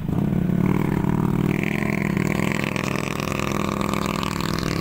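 A vehicle engine running steadily under load, with a higher whine over its drone; it cuts off abruptly at the end.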